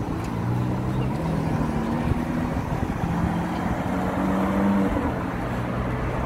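Lamborghini Aventador's 6.5-litre V12 pulling away and accelerating, its note climbing through the revs from about three seconds in and dropping back near the end.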